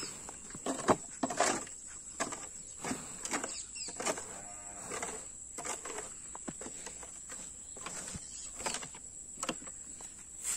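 Irregular scrapes and swishes of a broom sweeping dung and straw on a packed-earth cowshed floor, with shuffling sandalled steps. A cow lows once, briefly, about four seconds in. A steady high insect drone runs underneath.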